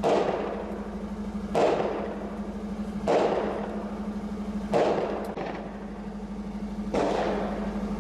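Five single gunshots, spaced roughly one and a half to two seconds apart, each followed by a long echo. Under them runs the steady hum of an idling vehicle engine.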